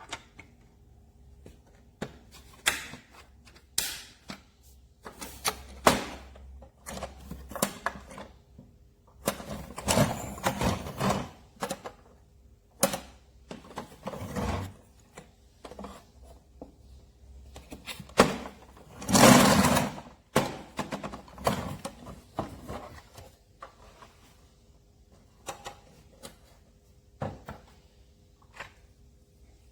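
Irregular knocks and thuds, some sharp and some duller, with a louder, longer noisy stretch about two-thirds of the way through, over a faint steady hum.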